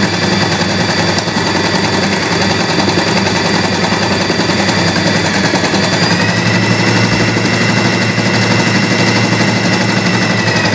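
Usha Janome Excella electric sewing machine running steadily, a rapid needle clatter over the whine of its motor. The whine steps up a little in pitch about six seconds in as the machine speeds up, and the sound stops near the end.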